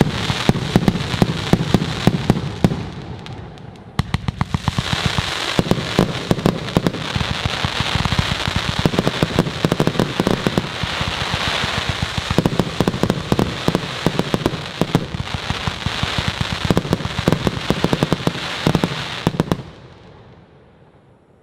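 Funke 'Fireball' 200-shot compound fireworks cake firing: a dense, continuous crackle of many small cracks and bangs. It eases briefly about four seconds in, resumes, then stops and fades away near the end.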